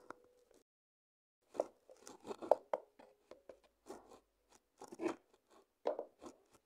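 Irregular rustling and clicking handling noises in short bursts, as a plastic baby doll in cloth clothes is moved about by hand.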